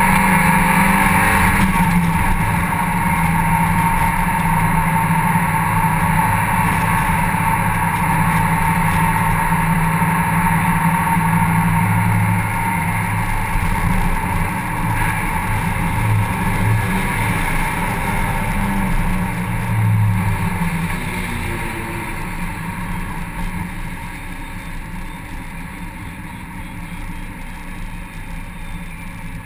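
Mazda MX-5 Cup race car's four-cylinder engine running hard on track, heard from inside the open cockpit with wind rushing past. Over the last several seconds it gets quieter as the car eases off.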